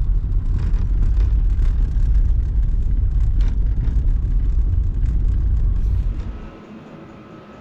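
Steady low road rumble heard from inside a moving vehicle. About six seconds in it cuts off abruptly, leaving a much quieter background with a faint steady whine.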